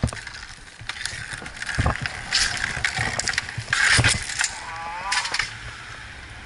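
Inline skate wheels rolling and scraping over asphalt, with sharp clacks of hockey sticks hitting the ball and each other about two seconds in and again around four seconds in.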